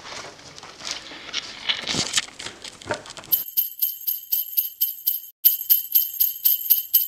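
Faint scuffing and clicks, then, about halfway in, small bells begin jingling in a steady rhythm of about five shakes a second, with one brief break.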